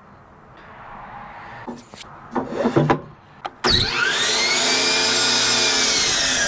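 Wood being handled and scraped, with a few knocks, then an electric power saw starts suddenly a little past halfway. Its motor whine rises as it spins up, then sags slightly in pitch as it cuts through a 2x4 board.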